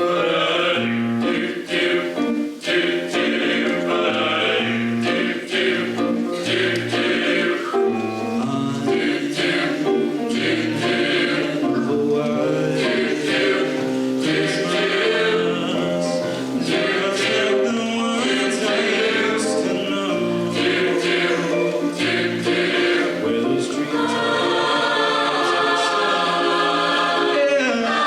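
A choir singing a song, many voices together, with the texture changing to longer held chords near the end.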